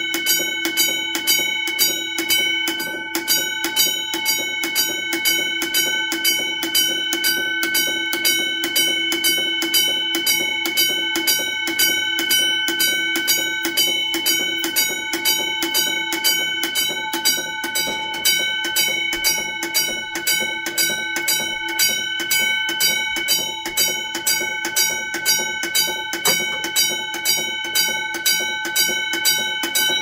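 Vintage 1962 Simplex fire alarm bells ringing continuously in a rapid, even rhythm of strokes, the system in alarm during a full test.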